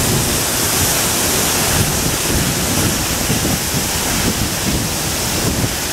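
Waterfall pouring down a steep rock slab close by: a loud, steady rush of water, with wind buffeting the microphone underneath.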